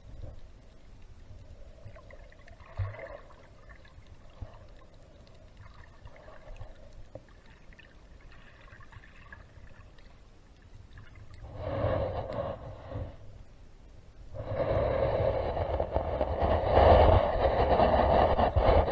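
A snorkeler breathing through a snorkel, with water sounds, as picked up by a camera in the water. It is faint for the first half, with a short louder burst about twelve seconds in, then a loud steady rushing from about fourteen seconds on.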